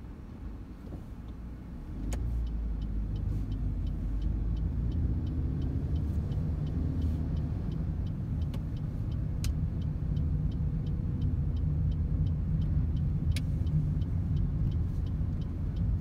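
Car cabin and road noise as the car pulls away from a stop about two seconds in: a steady low engine and tyre rumble, with a light ticking about twice a second over it.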